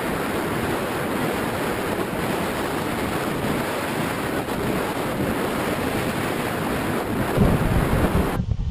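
Steady rush of wind over the microphone of a camera riding on an Easy Star II RC plane in flight, with heavier low buffeting about seven seconds in; it cuts off suddenly near the end.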